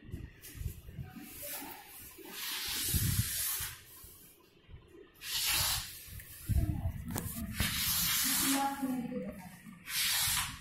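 Several separate bursts of hissing, each lasting about half a second to two seconds, with low knocks and handling noises between them.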